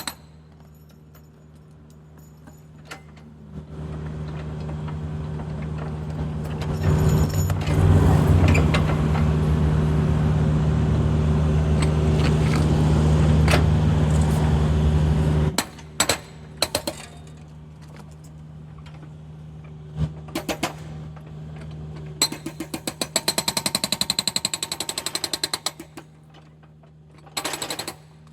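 A hydraulic excavator's engine runs steadily, then holds at much higher revs for about twelve seconds before dropping back to idle. After a few single knocks, its hoe ram (hydraulic breaker hammer) fires a fast train of blows for about three seconds, then a brief second burst near the end.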